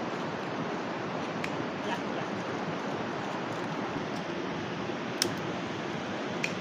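Steady rush of a river stream, with a few sharp clicks and one louder click about five seconds in.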